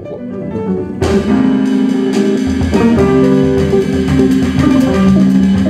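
Instrumental jazz band playing, led by a hollow-body archtop electric guitar with bass and drums behind it. The low bass notes come in about two and a half seconds in.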